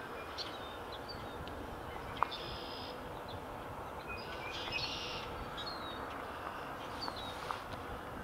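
Faint outdoor background: a steady low rumble from a distant approaching freight train, with scattered bird chirps and two short buzzy bird trills. One sharp click about two seconds in.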